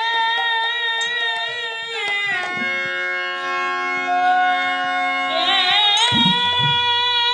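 Woman's voice singing a Bengali devotional kirtan with a wavering vibrato over a harmonium. About two seconds in the voice stops and steady held notes from the harmonium and bamboo flute carry on for about three seconds, then the singing comes back about six seconds in with low drum beats from the khol.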